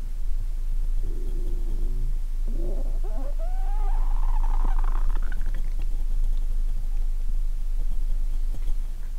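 A person's stomach and intestines growling after a lot of probiotic drink: a short low gurgle, then a longer squeaky gurgle that wobbles and rises in pitch. A steady low hum runs underneath.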